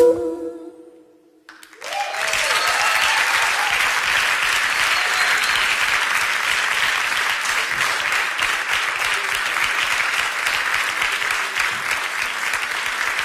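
The song's final held note fades out, then after a brief near-quiet moment an audience breaks into steady applause with a few cheers at its start.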